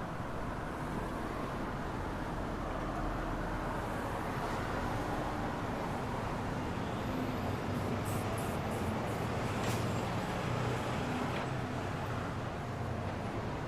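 Steady city road traffic: car engines humming and tyre noise, swelling a little about two-thirds of the way through, with a few short clicks.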